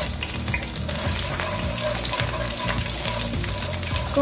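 Grated garlic sizzling with many fine crackles in hot cooking oil in a nonstick pan, stirred around with a spatula.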